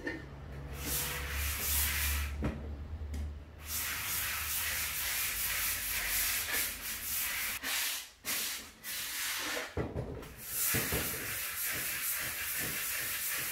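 Sanding sponge rubbed by hand over a chalk-painted wooden drawer top, rubbing steadily with a few brief pauses. The dried coat is being smoothed to remove brush marks and lumps before the next coat.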